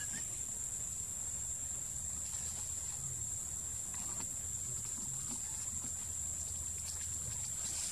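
Steady high-pitched drone of insects, unbroken throughout, over a low rumble with a few faint ticks.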